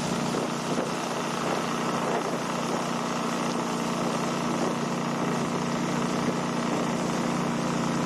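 Boat motor running at a steady speed with the boat underway, over a steady hiss of wind and water.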